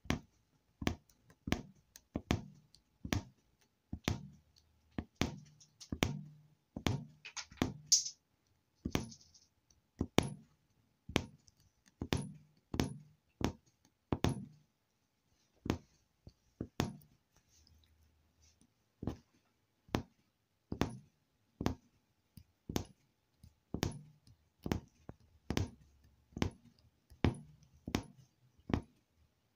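Punch needle piercing fabric stretched taut in an embroidery hoop, stitch after stitch: a short tap each time the needle goes through the cloth, repeating about once a second with a brief pause past the middle.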